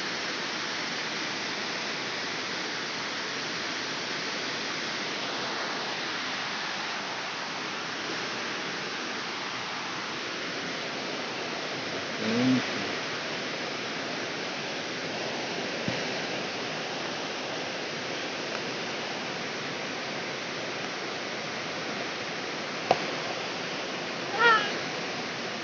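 A steady rushing hiss of background noise, broken by two brief pitched cries, one about halfway through and one near the end, with a sharp click just before the second.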